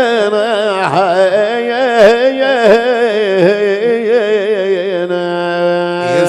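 Arabic mawwal music: a wavering, ornamented melody over a steady drone, settling into one long held note about five seconds in.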